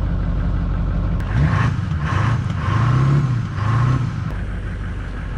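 Duramax diesel pickup truck driving, a steady engine and road drone. In the middle its engine note rises and falls about three times.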